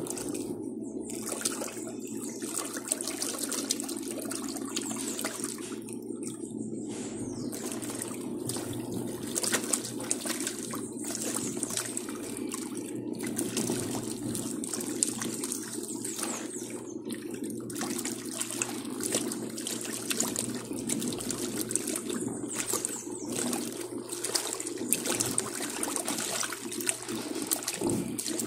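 Dako 4 kg tanquinho washing machine running, its fast-spinning turbilhonador impeller churning clothes in soapy water: continuous sloshing and splashing over a steady motor hum.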